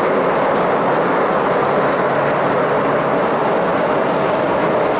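Airliner jet engines running, a steady, even noise with no change in pitch.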